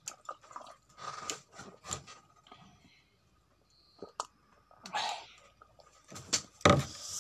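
Eating and drinking sounds close to the microphone: sips from steel cups and chewing, with a few sharp clicks and knocks, the loudest near the end.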